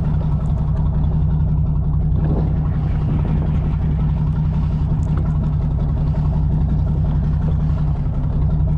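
Sportfishing boat's engine running steadily, a constant low hum that does not change.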